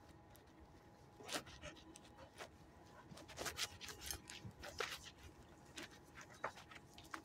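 A dog's faint, short, irregular breathing noises, with scattered soft clicks and scuffs.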